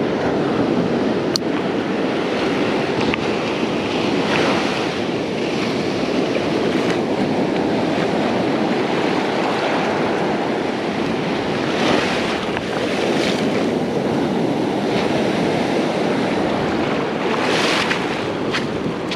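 Ocean surf washing onto a beach: a steady rush of water with several louder waves breaking now and then.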